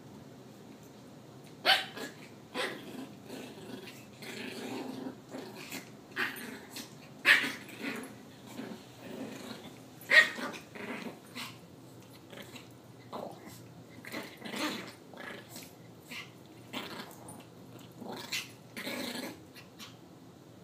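Two Yorkshire terriers play-fighting, growling and barking in short bursts one after another, with the sharpest barks about two, seven and ten seconds in.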